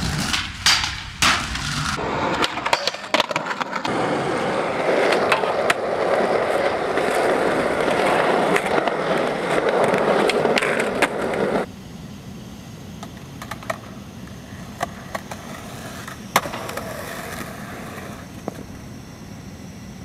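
Skateboard wheels rolling on pavement, with sharp clacks of the board's tail popping and landing. The loud rolling cuts off suddenly about twelve seconds in, leaving quieter ambience with a few scattered clacks.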